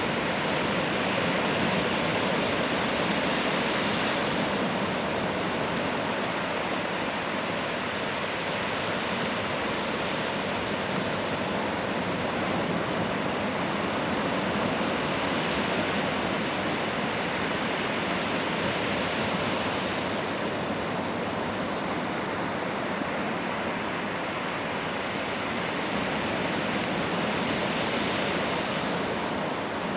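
Sea waves washing onto a beach: a steady rushing surf that swells slightly every ten seconds or so.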